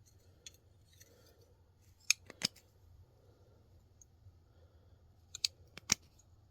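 Steel wrenches clinking as they are handled and set down: a few sharp clicks about two seconds in, then another cluster about five and a half seconds in.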